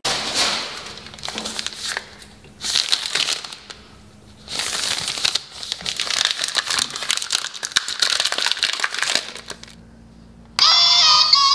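Plastic wrapper of an M&M's chocolate bar crinkling as it is handled, in several bursts with short pauses. About a second before the end a children's song with synthetic singing starts.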